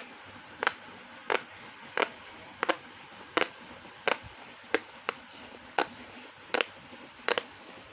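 Giant silicone pop-it fidget toy being pressed with four fingers, its bubbles giving short sharp pops about every two-thirds of a second.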